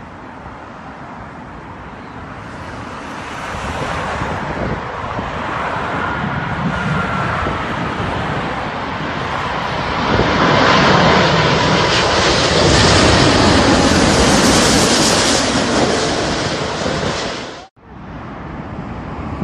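British Airways Airbus A380-841 with four Rolls-Royce Trent 970 engines on final approach, its engine noise swelling to loud as it passes low overhead, with a faint high whistle through the middle. It cuts off abruptly near the end, and a quieter stretch follows.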